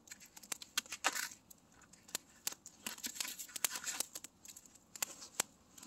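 Plastic wrapping on a steak being slit with a knife and peeled off: irregular sharp clicks and short crinkling tears of the plastic.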